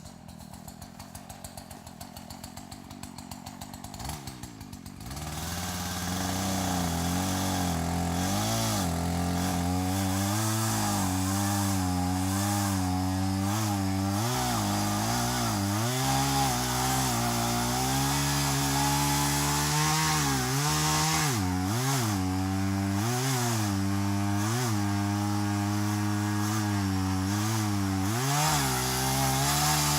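A small engine idling with a fast, even pulse, then opening up about five seconds in and running hard, its pitch rising and falling again and again with the throttle.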